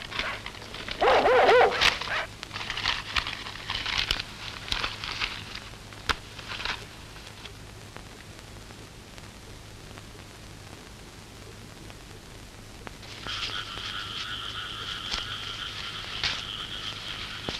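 A dog whines briefly at the start, then frogs croak off and on. In the last few seconds a steady two-pitched frog trill sets in.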